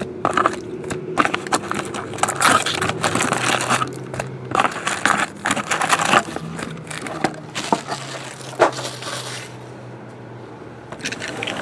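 Plastic wrapping crinkling and cardboard being handled as a sealed box of trading cards is opened, in irregular crackles and scrapes that ease off near the end.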